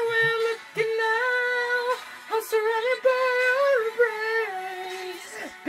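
A high voice singing long, held notes with little or no backing: the opening of a song. The notes bend slightly and break off every second or so.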